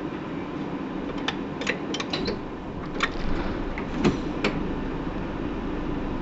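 Hino PDG-KV234N2 city bus heard from inside, its engine running with a steady low hum. Sharp, irregular clicks and rattles, nine or so, come through the first half, and the low rumble grows from about halfway.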